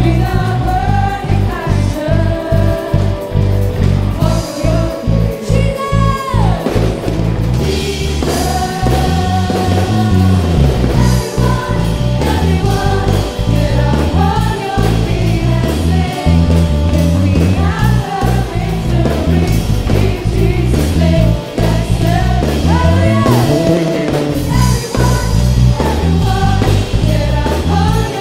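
Live worship band playing a praise song: several singers over electric guitar and bass guitar, with a steady beat.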